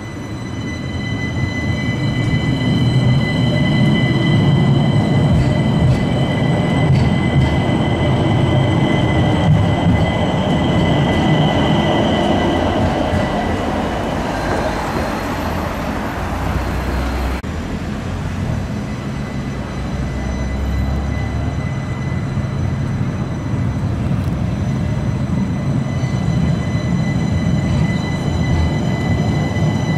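Stadler Citylink tram-train running on street track: rolling and motor noise with a steady high-pitched whine over it. The whine fades past the middle and comes back near the end as a tram passes close.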